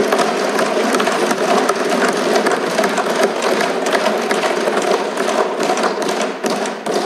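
Many legislators thumping their desks in applause, a dense, continuous patter of knocks with voices mixed in, thinning out near the end.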